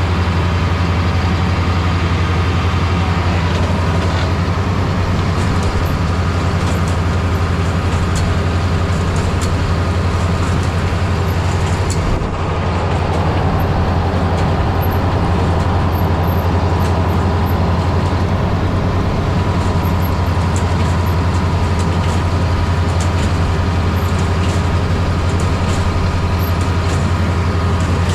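Heavy diesel cotton-harvest machinery running steadily under load, with a strong low engine hum and mechanical noise over it.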